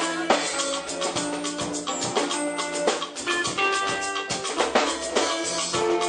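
Music with a drum kit beating steadily under held melody notes.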